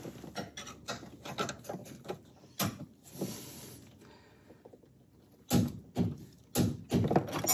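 Wrench ratcheting on the steering column bolt under the dashboard as it is tightened to torque: light metallic clicks and rattles, then a few louder sharp clicks about half a second apart near the end.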